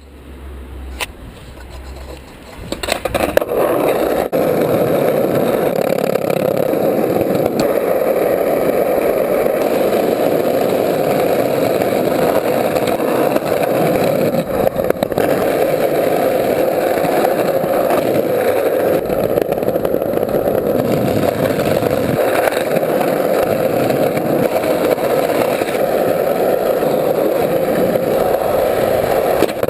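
Loud, steady city vehicle noise, building up over the first three seconds and then holding even.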